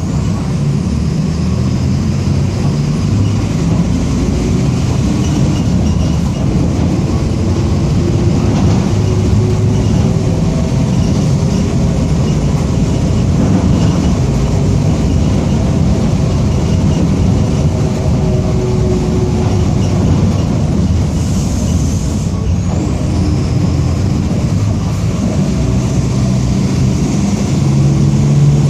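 Mercedes-Benz OF-1722M city bus under way, its diesel engine running with the differential growling. There is a short hiss of air about three-quarters of the way through.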